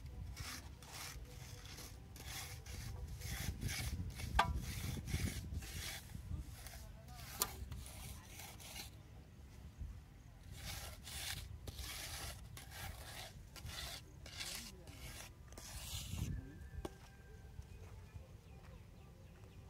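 Wooden screed board scraping back and forth over wet concrete in a precast wall-slab mould, about two rasping strokes a second, with a pause about nine seconds in and dying away near the end.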